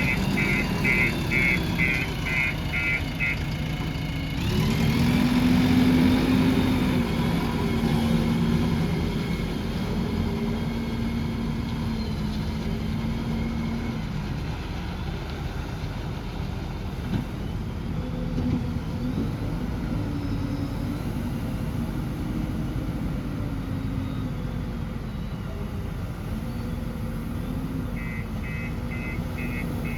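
JCB 3DX backhoe loader's diesel engine running and working, picking up and getting louder about four seconds in, then shifting up and down in pitch. A pulsing reversing beeper sounds about three times a second at the start and again near the end.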